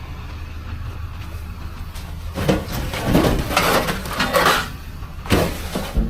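Grow pots clattering and knocking as they are picked up and handled, a burst of knocks and scrapes starting a couple of seconds in, over a steady low rumble.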